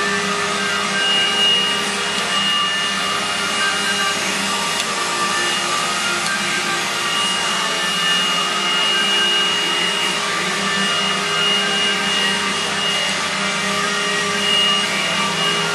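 Robot vacuum cleaner running steadily, with a high whine in its hum that fades in and out every few seconds.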